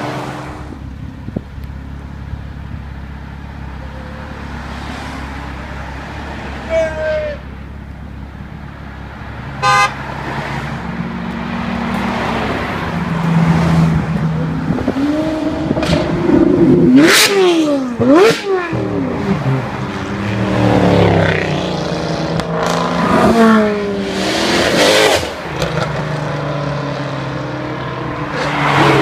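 Cars driving past on a road, engines revving hard in the second half with their pitch sweeping up and down as each one passes. A short car-horn toot sounds about ten seconds in.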